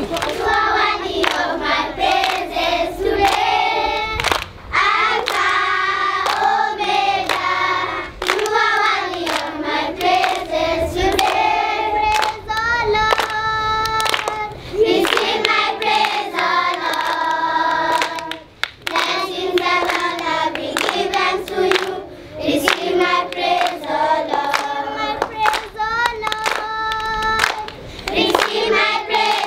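A group of schoolchildren singing a song together, clapping their hands along with it.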